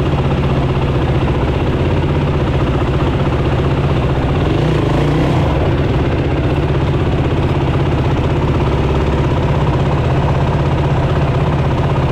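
Racing ATV's four-stroke engine running close to the onboard camera, holding a steady, unchanging pitch with no revving.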